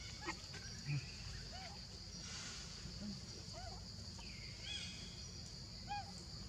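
Steady high-pitched drone of insects in the surrounding forest, with a few short faint chirping calls scattered through it.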